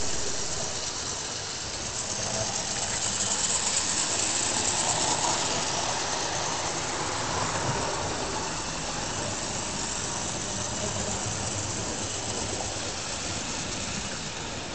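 OO-gauge Hornby model train running round the track: the locomotive's small electric motor whirs and its wheels run on the rails. It grows louder a couple of seconds in, as it passes close, then eases off.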